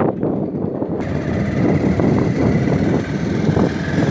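Motorcycle running at riding speed over a rough gravel track, a steady mix of engine and rushing noise. About a second in, the sound abruptly turns brighter.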